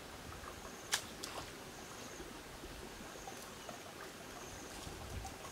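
Countryside ambience: a steady faint hiss with a few short, high chirps, and a sharp click about a second in, followed by a smaller one.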